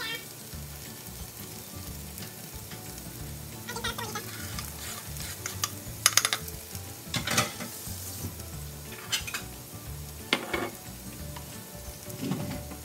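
Diced green pepper and carrot sizzling in a frying pan. About halfway through, chopped onion is scraped off a wooden cutting board into the pan, bringing a few sharp knocks and scrapes.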